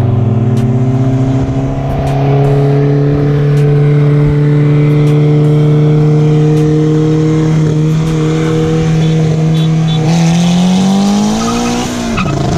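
Honda Civic Type R's turbocharged 2.0-litre four-cylinder engine under hard acceleration, its pitch climbing slowly and steadily. About ten seconds in it climbs faster, then drops sharply near the end at an upshift and starts climbing again.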